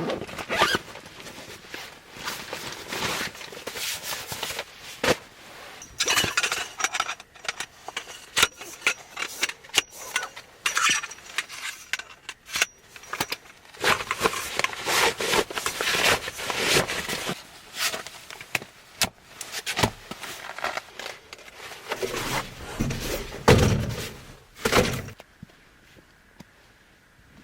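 Irregular rustling, clicking and clinking of things being handled, with a few heavier knocks a few seconds before the end.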